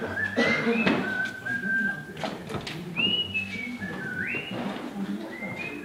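A person whistling a tune: single clear notes held briefly and stepping up and down, with short slides between them. A few light knocks and clicks of work sound underneath.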